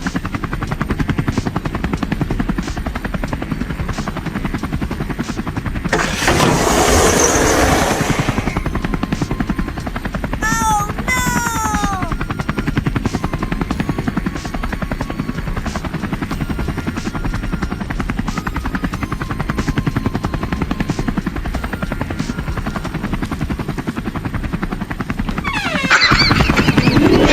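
Helicopter rotor chopping steadily at a low pitch. A louder rushing surge lasts about two seconds from six seconds in, and a couple of short falling squeals come around eleven seconds in.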